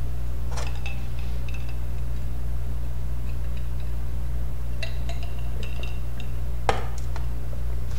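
Western Digital Caviar 160 GB IDE hard drive running under a benchmark test, with the computer: a steady low hum with scattered small clicks and short high chirps of the drive's heads seeking, and a sharper click near the end.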